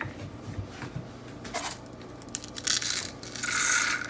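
Dry rice grains poured through a silicone funnel into a ceramic salt shaker: a short hissing patter of grains about three seconds in, after a few light handling clicks.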